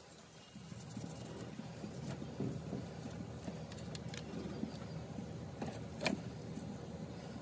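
Light clicks and clinks of a nut and cable terminal being worked by hand onto a starter solenoid's stud, with the sharpest click about six seconds in. A steady low rumble runs underneath.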